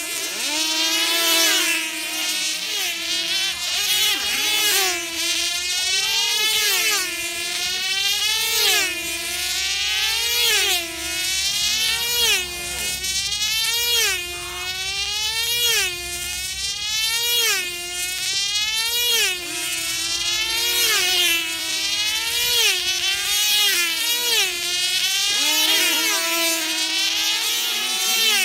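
Screaming high-revving 2.5 cc diesel engine of an F2C team-race control-line model flying laps at full speed. Its pitch rises and falls and its loudness swells with each pass, about once every second and a half.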